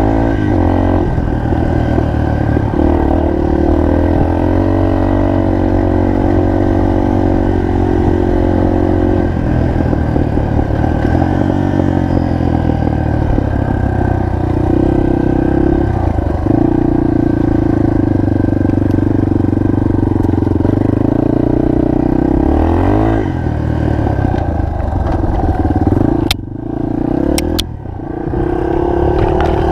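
Single-cylinder four-stroke trail motorcycle engine running under load, its pitch stepping up and down with throttle and gear changes. Near the end the engine note drops away briefly, with a few sharp knocks.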